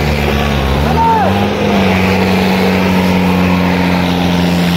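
Mahindra tractor diesel engines running hard under heavy load in a tractor tug-of-war; the engine pitch sags just under a second in, climbs back about a second and a half in, and then holds steady.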